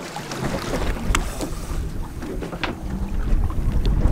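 Wind buffeting the microphone, swelling in the last second or so, over water sloshing beside a small boat, with a few sharp clicks.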